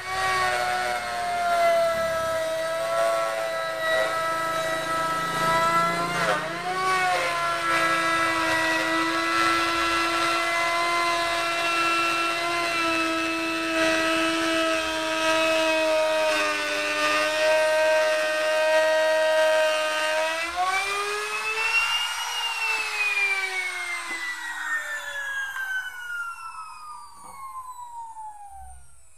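Electric router cutting a profile along the edge of a wooden window frame, its motor whining steadily and dipping in pitch as it bites into the wood. About 21 seconds in it rises in pitch as it comes off the wood, then it is switched off and winds down, the whine falling in pitch and fading.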